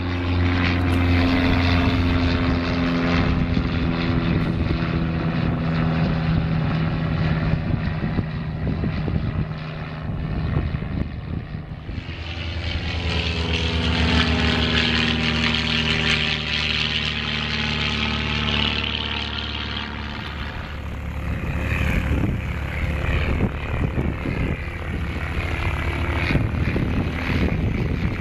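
Single-engine piston propeller airplanes flying past: a steady engine and propeller drone, then from about twelve seconds in a low-wing light plane passing overhead, its sound swelling and shifting in pitch as it goes by.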